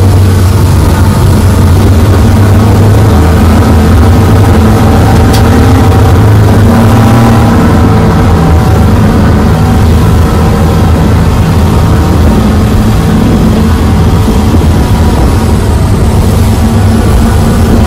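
Twin Suzuki 350 hp outboard engines running steadily at speed, heard from inside the powerboat's wheelhouse, over the rush of water and spray along the hull.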